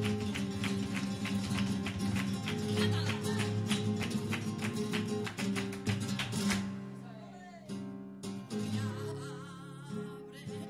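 Live flamenco music: guitar over a fast, even beat of sharp strikes, about four a second. The beat stops abruptly about six and a half seconds in, and quieter, sparser playing follows.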